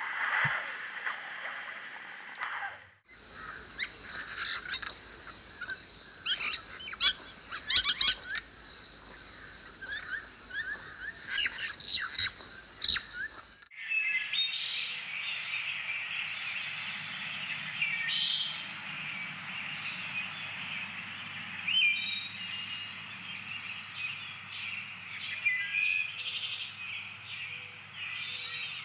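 Wild birds chirping and calling, many short calls overlapping. The outdoor ambience cuts abruptly to a different recording about three seconds in and again near the middle. In the last stretch a low steady hum lies under the chirps.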